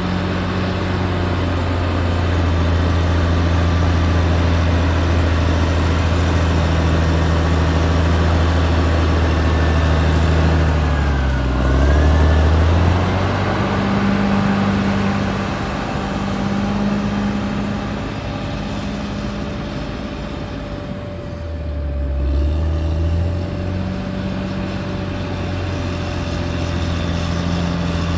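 Caterpillar D6R XL crawler bulldozer's diesel engine running steadily, its engine speed dropping briefly twice and picking back up.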